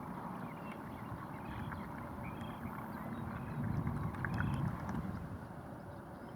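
Wind and outdoor ambience, a steady rushing hiss with a few faint, short, distant bird chirps scattered through it.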